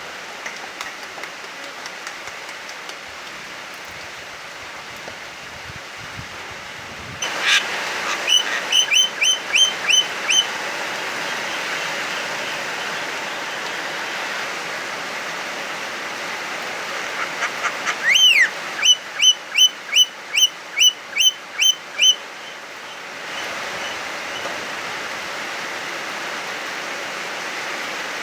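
Javan myna (jalak kebo) calling loudly in two bursts, each a quick run of evenly repeated notes at about three a second: the first about seven seconds in, the second near eighteen seconds opening with a long sweeping note. Steady heavy rain hisses underneath throughout.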